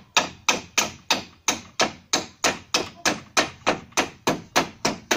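Hammer striking overhead into a wooden roof rafter, a steady run of about seventeen even blows, roughly three a second.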